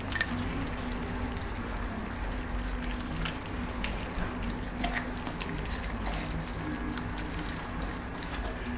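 A litter of puppies eating together from a shared round metal feeding dish: steady wet lapping and smacking, scattered with many small clicks.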